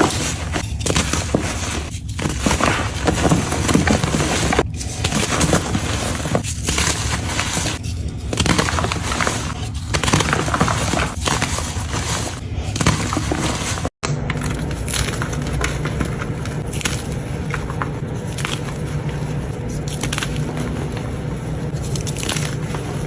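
Dense crunching and crackling with many small breaking impacts. After a sudden cut about two-thirds of the way in, a steadier low hum follows, with light regular scrapes or taps.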